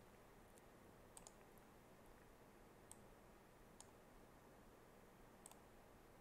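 Near silence broken by a handful of faint computer mouse clicks, spread unevenly: a quick pair about a second in, single clicks near three and four seconds, and another pair near the end.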